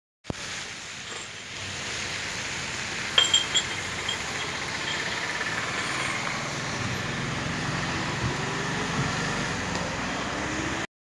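Steady noise of a vehicle riding along a wet road: engine and road noise, with a few short sharp rattles about three seconds in. It cuts off abruptly near the end.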